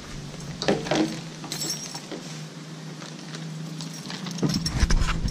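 Scattered clicks and clatter of things being handled around a motor scooter with its seat open, then rustling and wind on the microphone growing louder near the end.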